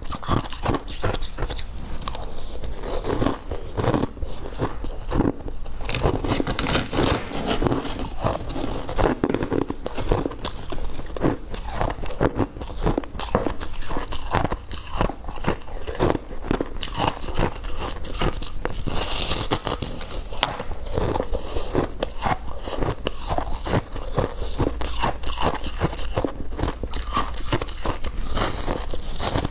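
Ice being bitten and chewed close to the microphone: a dense, unbroken run of crisp crunches.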